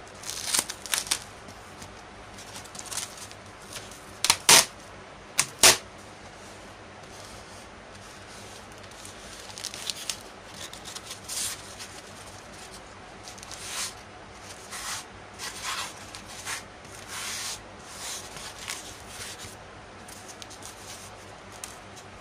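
Hands rubbing and handling thermocol (polystyrene foam) pieces: irregular scraping and squeaky rubs, loudest and sharpest about four to six seconds in.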